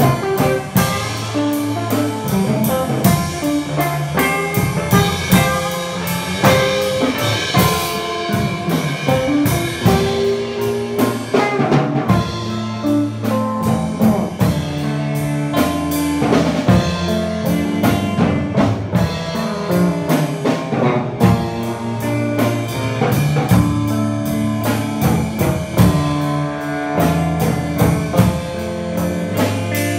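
Live band playing a loud, steady rock groove: a drum kit beating out an even rhythm under electric guitar.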